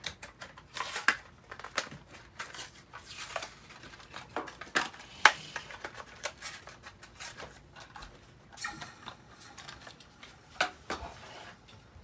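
Toy-car blister packs being torn open by hand: cardboard backing ripping and plastic bubbles crackling in irregular crinkles and snaps, the sharpest about five seconds in.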